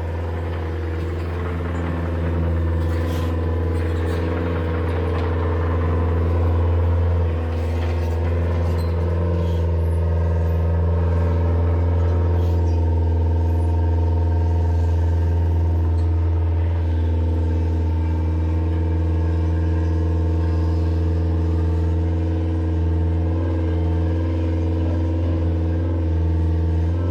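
A large engine running steadily at a low idle, its low hum unchanging, with a few faint knocks now and then.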